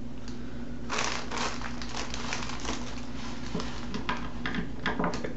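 Mailer bag crinkling and rustling as it is handled and cut open with scissors, with many small clicks, starting about a second in.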